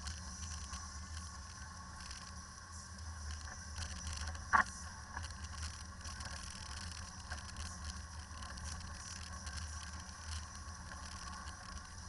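Land Rover driving over a rough, snowy dirt track, heard from the cabin: a steady low engine and road drone with small rattles and clicks throughout. A single sharp knock stands out about four and a half seconds in.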